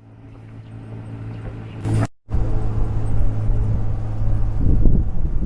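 Tuk-tuk engine running with a steady low hum, fading in. There is a brief crackle and a short dropout about two seconds in. Gusts of wind rumble on the microphone near the end.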